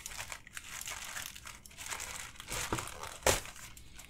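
Plastic courier mailer crinkling and rustling as it is cut open with scissors and handled, with a louder sharp crackle a little over three seconds in.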